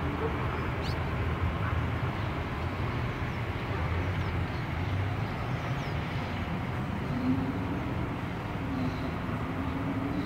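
Steady rumble of distant city traffic, a continuous blend of many vehicles, with a faint engine drone coming up over it about seven seconds in.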